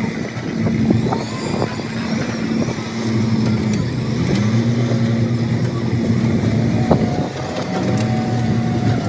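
Excavator's diesel engine running steadily, its pitch dipping briefly twice, about four seconds in and again near the end, with faint knocks over it.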